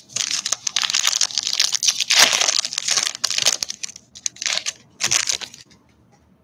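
Foil wrapper of a basketball trading card pack crinkling and tearing as it is opened by hand: about four seconds of continuous crackling, then two shorter crinkles.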